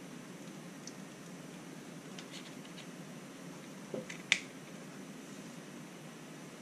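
Quiet room hiss with a few faint ticks and one sharp click about four seconds in, from small plastic parts and wiring of an RC crawler being handled.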